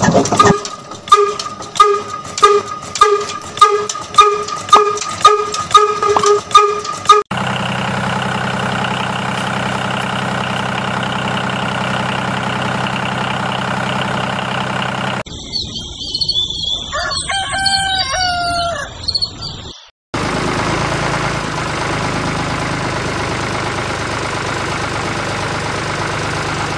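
A small engine chugging in a regular beat, about one and a half beats a second. About seven seconds in it gives way to a steady motor hum. A rooster crows about fifteen seconds in, and a steady hum follows from about twenty seconds in.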